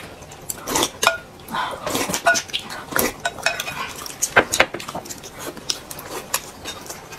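Chopsticks and a spoon clinking against plates and a glass bowl while eating, in irregular taps, a few ringing briefly.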